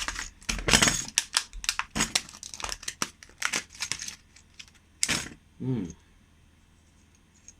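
Small tool kit being handled: a quick run of plastic clicks and metal rattles from a case of screwdriver or drill bits being opened and sorted. It stops about six seconds in, after a brief low hum.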